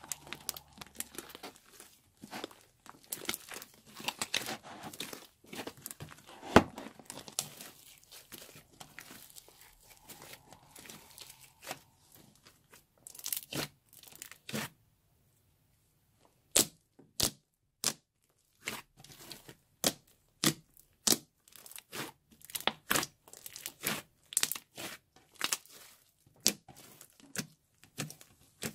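Slime being squeezed and stretched by hand, giving wet crackling and popping. The crackling is dense at first; after a short pause about halfway through come separate sharp pops, one or two a second.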